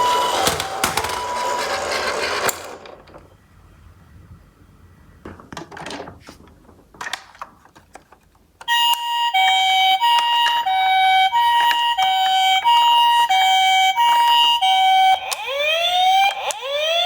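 Toy minicar's electronic ambulance siren alternating between two tones, high and low. It cuts off about two and a half seconds in, leaving scattered small plastic clicks and rattles. Near the nine-second mark it starts again suddenly and loudly, and near the end a few rising wailing glides from a second siren join it.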